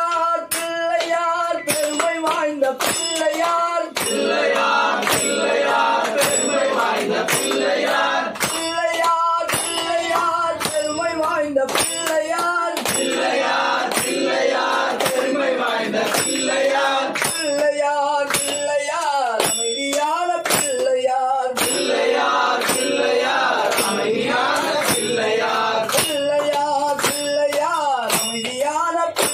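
Devotional singing by several voices, accompanied throughout by bright metallic strikes at a steady beat of about two a second.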